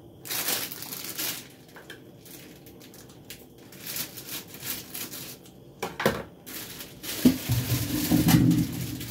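Kitchen handling noises: irregular rustling and crinkling bursts with a few knocks as vegetables are handled and washed, growing louder and denser near the end.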